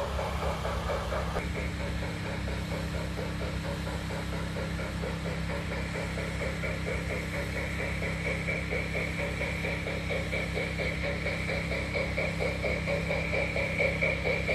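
Garden-railway model steam locomotive and its freight cars running along the track: a steady mechanical hum of motor and wheels on rail that grows a little louder near the end as the train approaches.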